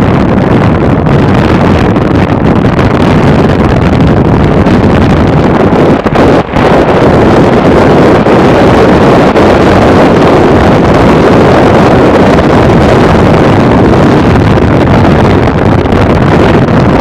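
Heavy wind rushing over the microphone of a Lifan KPR150 motorcycle being ridden at about 48 km/h, with the running of its single-cylinder four-stroke engine beneath. The noise is loud and steady, with one brief dip about six and a half seconds in.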